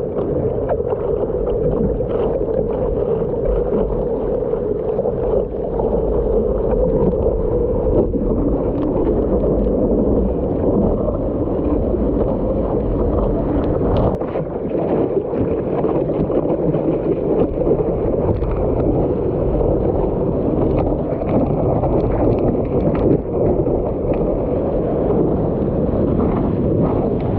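Seawater rushing and splashing against a surfboard as it is paddled into a wave and then ridden along the breaking whitewater, heard close to the water from the board's nose.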